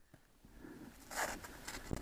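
Dry fallen leaves rustling and crunching as someone shifts in the leaf litter, with a louder scrape about a second in and a few small ticks after it.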